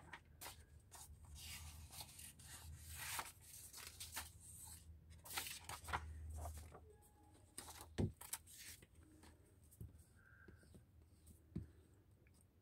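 Paper and card being handled and shifted on a cloth-covered table: a run of soft rustles, then a single sharp knock about eight seconds in and a few small ticks.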